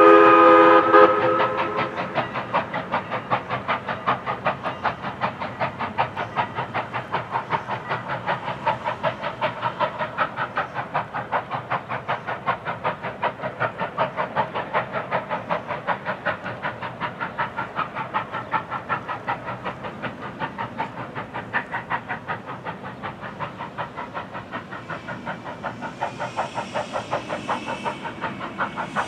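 Steam locomotive whistle sounding a chord of several tones, cut off about a second in, then the passing steam train running by with a steady rhythmic clatter of about three to four beats a second.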